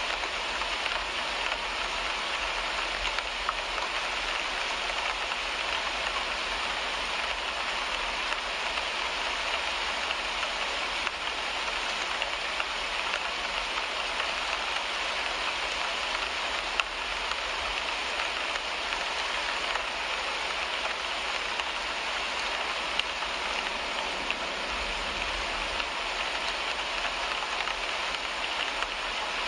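Steady rain falling on a car's windshield, with a few brief louder drop taps standing out.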